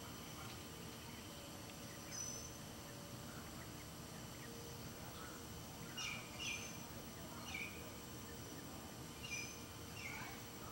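Wild turkeys giving short, high, falling peeps now and then, a few in a cluster past the middle and more near the end, over a steady faint background hiss.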